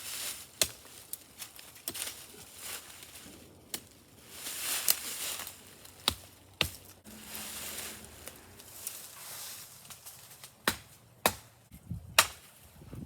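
A hatchet striking wood in sharp, irregularly spaced knocks, the loudest blows near the end, with rustling noise in between.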